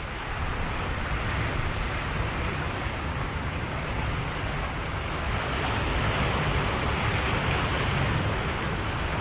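Sea waves washing onto the shore in a steady surf, swelling somewhat louder past the middle and easing near the end.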